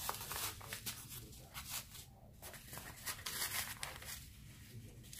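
A piece of cardboard scraping and sliding against crocheted yarn fabric as hands tuck it into a hat brim: faint, irregular rustling and scuffing.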